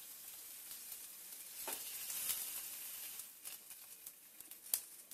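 Halved tomatoes sizzling on the hot ribbed plate of an electric sandwich-toaster grill as they are laid down one by one. A steady hiss fades after about three seconds, with a few short taps as pieces land on the plate.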